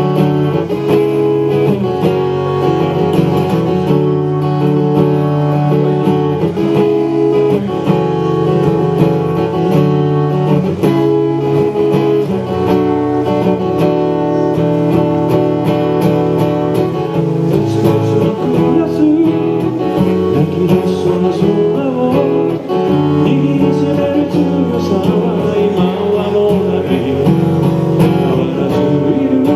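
Acoustic guitar playing a pop song, strummed and picked chords played steadily without a break.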